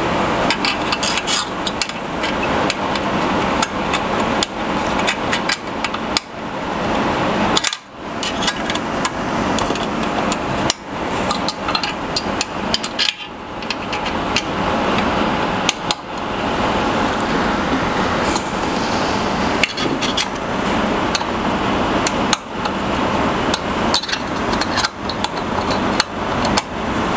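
Clicking, tapping and scraping of metal parts as the Incra router fence and its positioner are adjusted and fastened by hand: many sharp clicks over a continuous rasping noise, with two short pauses.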